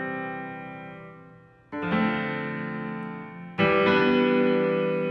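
Sampled keyboard patch 'Supreme Keys' from the Alliance Kontakt library playing sustained chords that ring and slowly fade. New chords are struck about two seconds in and again about three and a half seconds in.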